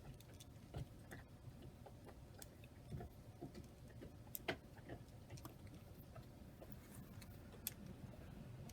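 Faint, irregular clicks of a miniature Rubik's cube's layers being turned by hand during scrambling.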